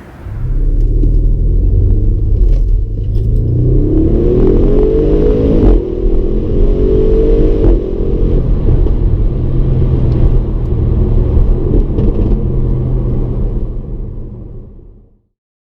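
Audi RS6 Avant's 4.0-litre twin-turbo V8 running under load with a deep rumble. About four seconds in its pitch rises, drops sharply, then rises again, as if accelerating through a gear change. It fades out near the end.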